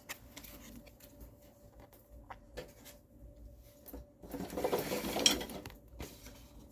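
Pokémon trading cards being handled, with light clicks and then a brief stretch of rustling and sliding about four seconds in, marked by one sharp tap.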